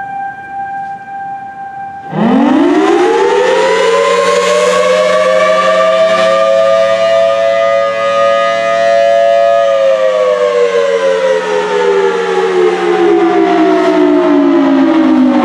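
Federal Signal Thunderbolt 1000T tornado siren. After a fainter steady tone, it starts up loudly about two seconds in and sweeps rapidly up in pitch. It holds a high two-note chord for several seconds, then winds down in a long falling wail.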